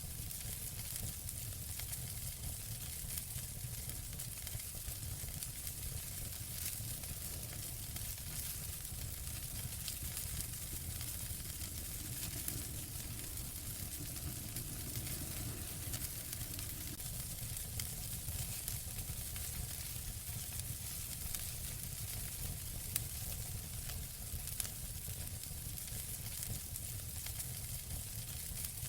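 Wood fire burning in a fireplace: a steady hiss with constant small crackles and a few sharper pops.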